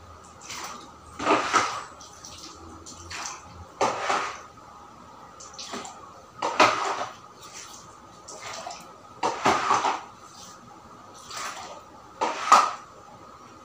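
Floodwater being scooped off a tile floor with a plastic dustpan and tipped into a plastic bucket: a splash every two to three seconds, with smaller scrapes and splashes between.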